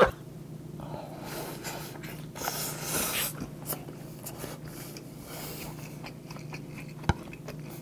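A person chewing a mouthful of tuna-mayo rice ball: soft, wet mouth sounds and breaths, loudest about two to three seconds in, with one sharp click near the end.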